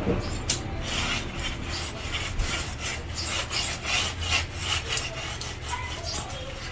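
Hand tool scraping and rubbing over fresh cement render in repeated even strokes, about three a second, smoothing the plaster on a wall base.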